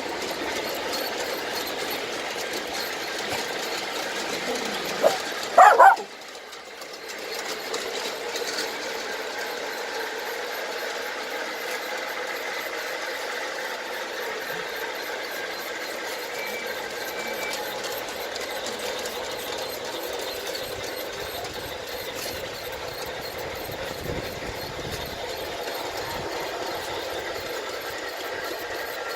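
Bachmann large-scale Thomas and Percy model locomotives running on track, with steady running sound from the DCC sound decoder's speaker and the wheels. About five seconds in, two short, loud, sharp sounds cut across it.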